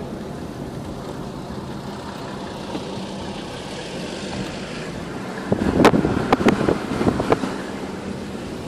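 Steady road and engine noise of a car driving slowly, heard from inside the cabin. A burst of sharp clattering knocks comes about five and a half seconds in and lasts under two seconds.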